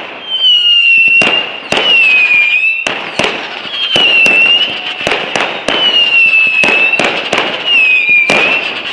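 Fireworks display: a rapid run of sharp bangs, roughly one or two a second, with high whistles about a second long between them, each dipping slightly in pitch, from whistling fireworks rising.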